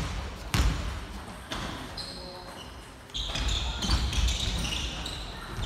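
A basketball bounced three times on a wooden gym floor, each bounce ringing in the hall, as a free throw is set up. After about three seconds a busier stretch of game noise follows, with high squeak-like sounds.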